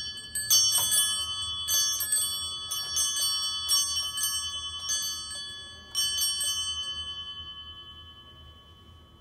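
Small bells struck repeatedly in an irregular jangle for about six seconds, each strike leaving several high pitches ringing; after the last strikes the ringing slowly fades away.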